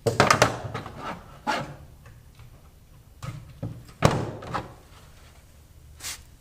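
Clattering knocks and thunks from a bass and a digital scale being handled on a hard surface, in a rattling cluster at the start, a single knock about a second and a half in, and another cluster about three to four and a half seconds in, with a short scrape near the end.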